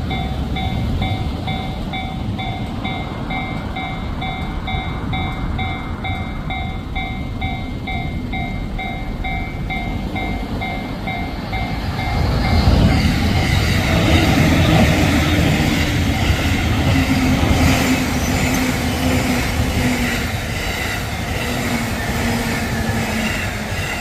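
Japanese level-crossing warning bell dinging about twice a second, then an electric commuter train passes over the crossing from about halfway through, its wheels and motors rumbling loudly over the bell.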